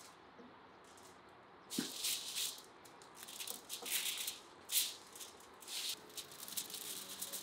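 Aluminium foil crinkling and crackling in irregular bursts as a raw marinated whole chicken is handled and pushed onto a metal rotisserie spit lying on the foil, with a single knock about two seconds in.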